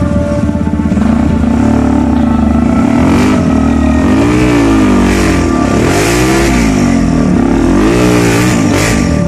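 Dirt bike engine revving up and down repeatedly as the throttle is worked on and off, fairly even at first, then rising and falling about five times in quick succession.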